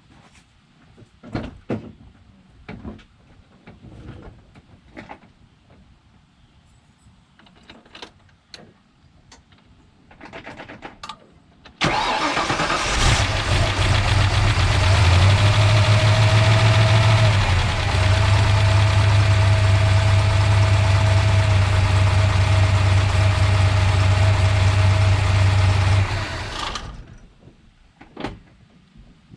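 A few light clicks and knocks, then about twelve seconds in the Ford Ranger pickup's engine is cranked by the starter, catches within about a second and idles steadily before it shuts off suddenly near the end. It is the first start after an oil and filter change, with the remote-mounted oil filter not pre-filled with oil.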